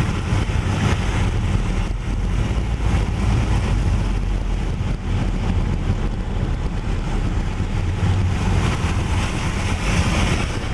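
Steady low rumble of a car driving along a wet road, with an even hiss of wind and rain from a tropical storm.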